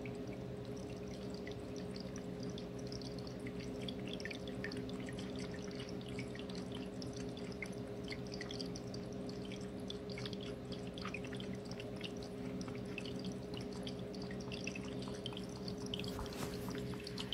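A cat lapping water from an open aquarium: a steady run of small wet drips and ticks over a constant low hum.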